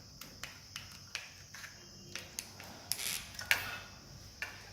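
Irregular light clicks and taps of small hard parts being handled, as in wiring and fitting an electrical switch, with one sharper click about three and a half seconds in. A faint steady high hiss lies underneath.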